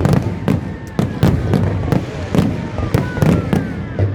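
Fireworks display: a rapid run of bangs and crackles, several a second, with a few short falling whistles.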